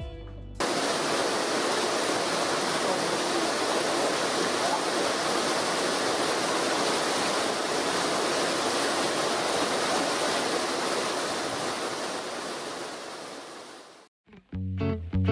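Rushing water of a mountain creek cascading through a rocky gorge: a steady, even rush that fades out near the end.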